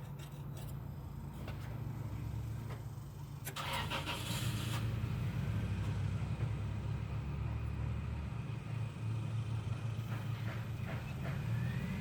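Low, steady drone of a motor vehicle's engine, growing louder about three and a half seconds in, with a brief rustle or scrape about four seconds in.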